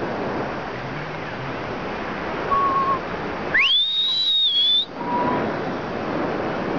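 Person whistling in flight under a paraglider, over a steady rush of airflow on the microphone: a short low whistle about two and a half seconds in, then a loud whistle that swoops sharply up and is held high and wavering for about a second, followed by a brief low note.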